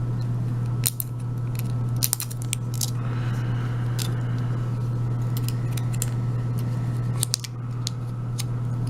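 Scattered light metallic clicks and a soft scrape from a Euro cylinder lock and its shim being worked while the lock is shimmed for gutting, over a steady low hum.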